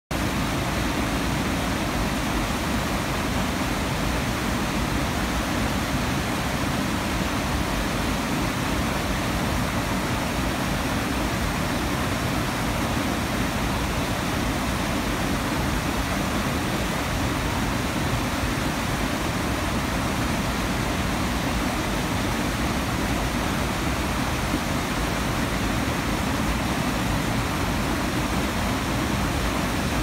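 Water pouring over a low river weir into churning white water: a steady, unbroken rush that does not change.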